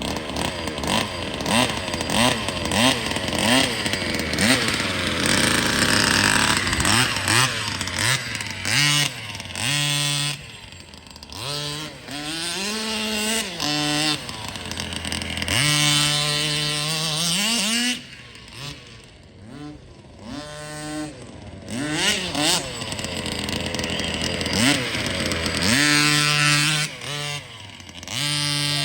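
Two-stroke gas engine of a 1/5-scale Baja 5B RC car revving in repeated bursts of throttle, its pitch climbing and falling again and again, with short drops back toward idle between runs.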